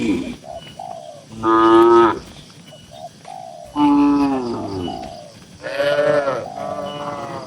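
Cattle mooing in a barn: three loud, long moos about one and a half, four and six seconds in, the middle one falling in pitch, with shorter, fainter calls between them.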